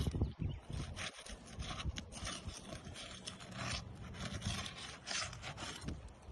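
Repeated scraping and rubbing strokes as a tool is worked under laminated roof shingles to break their adhesive seal.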